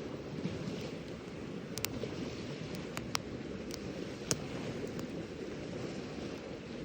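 Wood campfire burning, with a steady low rush and a few sharp crackles and pops, the loudest a little past the middle.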